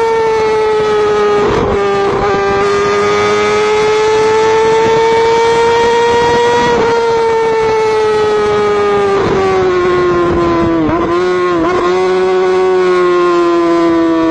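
Motorcycle engine held at high revs, a steady high-pitched drone that slowly rises and falls in pitch, with brief dips a few times.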